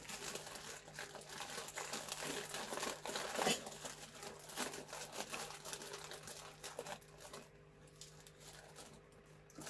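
Plastic bag crinkling and rustling as green onions are pulled out of it and handled. The crackling is dense for about seven seconds, then fainter and sparser near the end.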